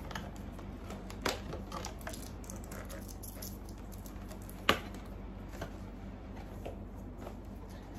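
Light taps and clicks of cardboard blind boxes and small toys being handled, with one sharp click about four and a half seconds in, over a steady low hum.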